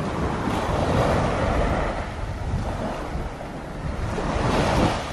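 Small waves breaking and washing on a sandy beach, with wind buffeting the microphone in gusts; a wash swells up near the end.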